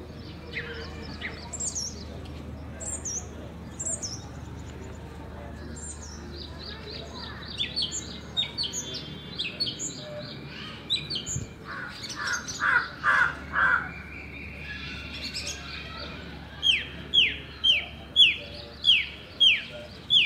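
Several birds chirping and calling: many short, high chirps throughout, a quick run of lower, louder notes around the middle, then a bird repeating a loud call that falls in pitch, about two a second, over the last few seconds.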